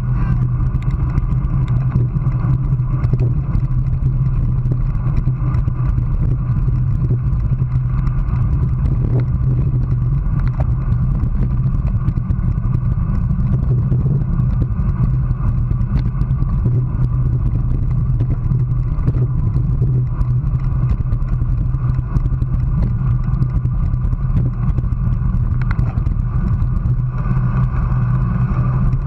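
Steady wind noise buffeting a handlebar-mounted GoPro on a road bike riding at about 24 mph, with road rattle from the bike on asphalt.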